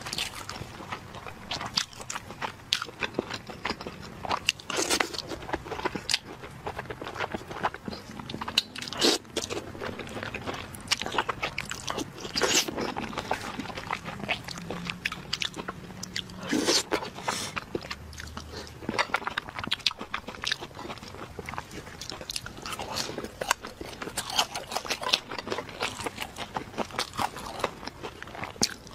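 Close-miked eating sounds: irregular crunching bites and chewing of skewered fried and grilled food.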